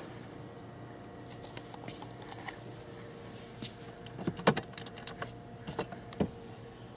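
Glove box of a 1974 Chevrolet Monte Carlo being opened: a few sharp clicks and knocks from the latch and lid in the second half, the loudest about four and a half seconds in, over a steady low hum.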